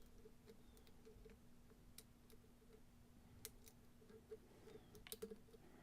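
Near silence with a few faint, scattered metal clicks from the lock and picks being handled, over a faint steady hum.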